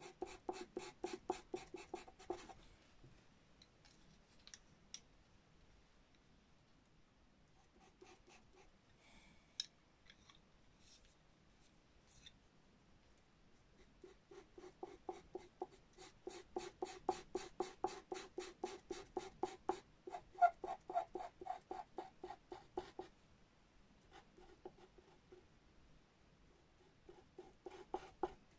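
Pastel pencil scratching on pastel paper in quick repeated strokes, about four or five a second, in runs of several seconds with quiet pauses between them. A few faint clicks fall in the pauses.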